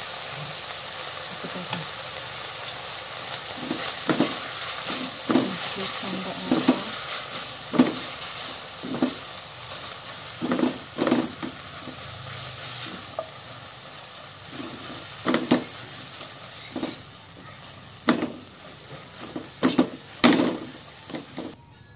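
Rice vermicelli sizzling in a wok as it is stirred and tossed with a silicone spatula, with irregular knocks and scrapes of the spatula against the pan about once a second. The frying hiss thins toward the end.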